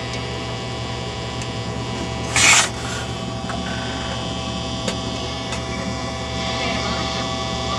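A 1959 Philco tube AM radio's speaker gives a steady hum and faint static while its dial is tuned between stations. About two and a half seconds in there is a short, loud burst of static.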